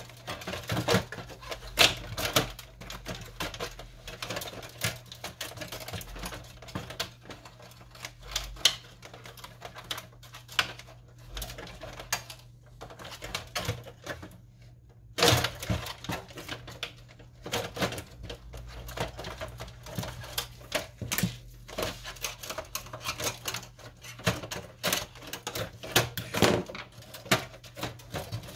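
Irregular plastic clicks, snaps and rattles from an Epson WF-2650 inkjet printer's casing and internal parts being handled and pried loose by hand, with a short lull just before a sharp loud click about halfway through. A faint steady hum runs underneath.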